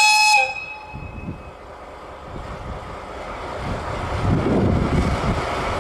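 A DE10 diesel-hydraulic locomotive sounds a short horn blast that dips in pitch as it dies away, then its diesel engine rumbles louder and louder as it throttles up, pulling its train away.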